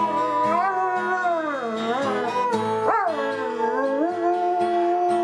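A dog howling along with music: its wavering howl glides up and down over steady held notes, with a sudden high upward sweep about three seconds in.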